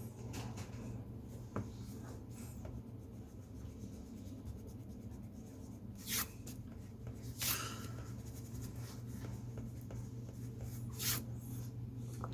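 Pen drawing on paper: faint scratching strokes, with a few short louder swishes about six, seven and a half and eleven seconds in, over a steady low hum.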